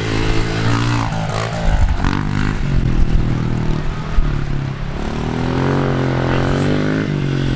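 A vehicle engine running steadily, its pitch dipping and rising a couple of times, with wind buffeting the microphone.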